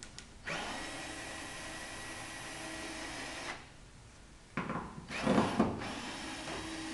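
Handheld power drill/driver backing screws out of the compressor's enclosure panel: the motor runs with a steady whine for about three seconds, stops, then starts again about four and a half seconds in with a louder rough burst before settling into a steady run.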